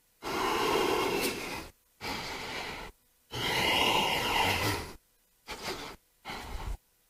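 A man breathing hard with exertion: five breaths in and out, the first and third long, the last two short, each stopping abruptly into silence.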